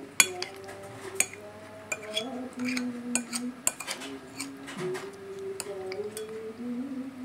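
Metal spoon and fork clinking and scraping against a ceramic plate while eating, with a handful of sharp separate clinks; the loudest comes just after the start.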